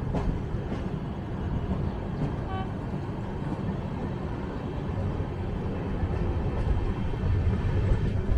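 Moving passenger train running along the track: a steady low rumble, with a brief high tone about two and a half seconds in.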